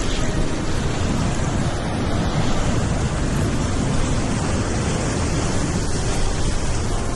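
Heavy surf breaking and churning over sea rocks, a loud steady wash, with wind buffeting the microphone and adding a low rumble.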